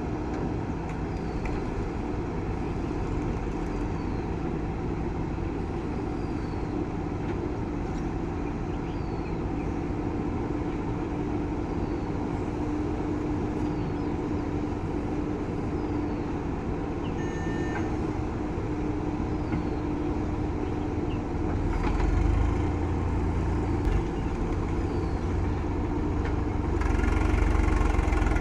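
Diesel engine of a JCB backhoe loader running steadily as it digs and loads mud. The engine works harder and grows louder about three-quarters of the way through, and again near the end.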